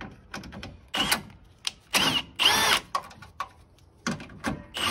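Cordless drill spinning a socket in several short trigger bursts, its motor whine rising and falling, backing out bracket bolts. The longest burst comes near the end.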